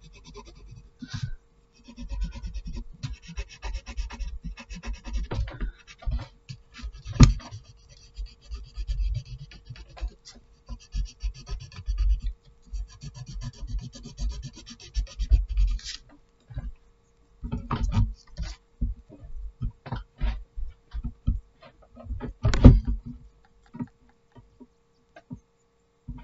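Graphite pencil shading on paper: runs of fast back-and-forth scratching strokes broken by pauses. Low thumps and a few sharper knocks come from the hand and paper being moved.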